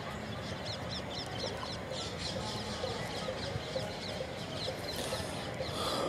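Many small birds chirping together: a dense run of short, quick, downward-sweeping notes over a steady low outdoor background noise.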